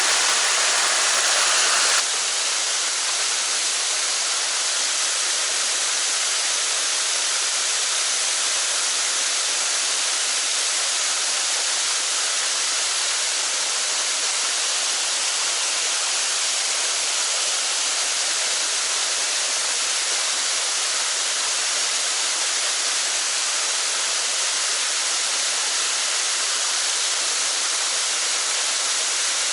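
Mountain stream water rushing steadily, a constant white-water rush with no lows, dipping slightly in level about two seconds in.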